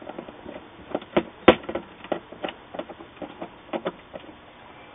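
Small irregular clicks and taps of a screwdriver working screws into a power supply board and its sheet-metal chassis, the sharpest about one and a half seconds in, dying away near the end.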